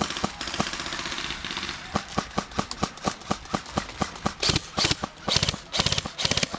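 Airsoft guns firing: a rapid rattling burst, then single shots about four a second, then several short bursts of fast fire near the end.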